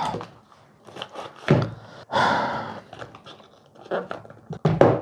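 Cardboard perfume box being handled and set on a wooden table: a few sharp knocks and cardboard scuffs, the loudest about a second and a half in and just before the end, with a heavy breath out about two seconds in.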